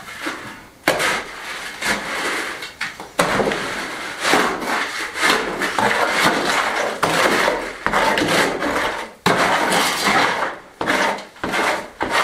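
Shovel scraping and turning a gritty limecrete mix in a metal wheelbarrow: a run of rasping strokes, with a sharp knock of the blade against the barrow now and then.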